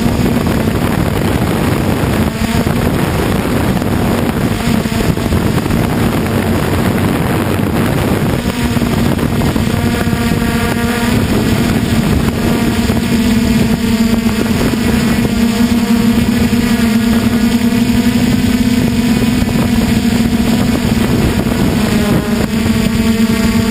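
A DJI Flame Wheel 450 quadcopter's brushless motors and propellers, heard from a camera on the frame during flight: a steady, loud buzzing hum. Rushing air noise runs with it and is heavier in the first several seconds.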